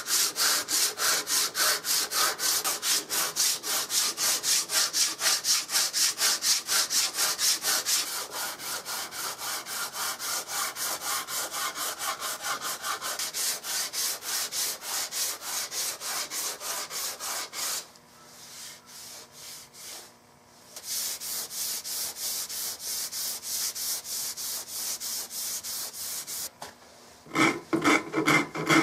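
Coarse hand rasp stroked rapidly back and forth across a walnut gun stock's wrist, about three to four strokes a second, shaving the wood down; the strokes stop for a couple of seconds and start again. Near the end a wooden-handled file takes over, with fuller, louder strokes.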